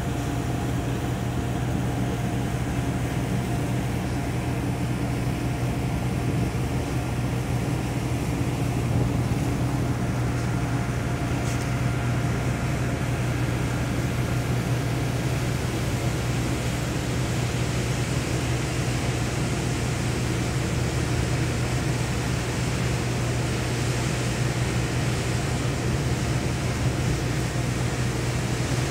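Ship's engines and machinery running with a steady low hum and a few held higher tones, over an even hiss of wind and sea.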